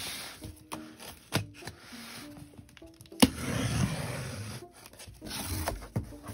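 A cardboard box being cut open with a utility knife and its flaps pulled apart: scattered clicks and cardboard scraping and rubbing, with a sharp tap about three seconds in, over light background music.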